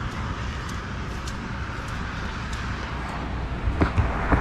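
Steady outdoor rumble of road traffic, getting a little louder near the end, with a few low thumps.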